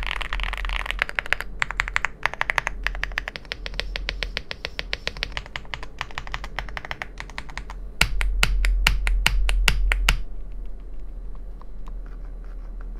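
AULA F75 gasket-mount mechanical keyboard with lubed 45-gram Reaper linear switches being typed on fast, a dense run of keystrokes. About eight seconds in comes a louder run of single key strikes, about five a second for two seconds, then the typing dies down to faint scattered clicks.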